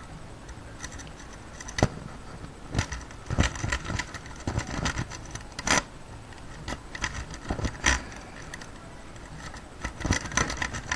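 Steel lock pick raking the pins of a euro cylinder lock, with irregular metallic clicks and short scrapes as the pins are worked.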